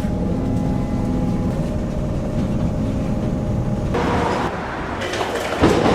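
Electric suburban train at a station platform: a steady low rumble with humming tones, which gives way about four seconds in to a thinner hiss. A sharp knock comes near the end.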